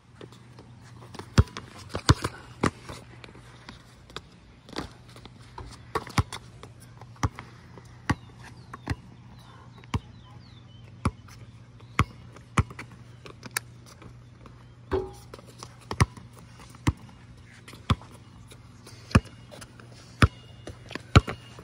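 Basketball dribbled on a concrete court: sharp bounces roughly once a second, sometimes quicker.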